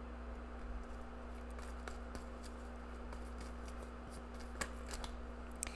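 Tarot cards being handled in the hands: a scattered run of faint, irregular clicks and flicks from the deck, a few sharper ones near the end, over a low steady hum.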